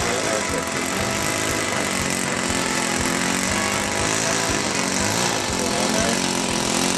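Radio-controlled model airplane engine running in flight, a buzzing drone whose pitch slowly rises and falls as the plane manoeuvres.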